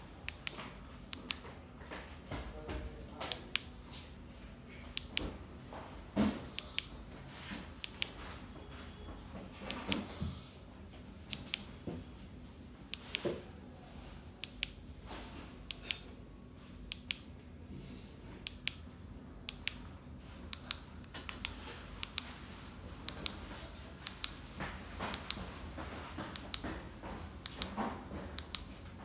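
Repeated sharp clicks, irregular, one to a few a second, as the LED light bar is switched between colours and flashing modes with its wireless remote, over a faint steady low hum.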